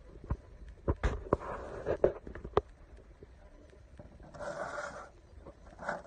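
Scattered knocks and steps of someone walking about and handling things around a pigeon loft, followed by two short rustling scrapes near the end.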